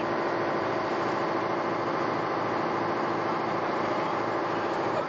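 Steady drone of a sportfishing boat's engines running while under way, with an even rushing hiss and no change in pitch or level.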